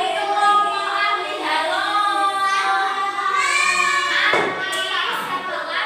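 Children singing together in sustained, held notes.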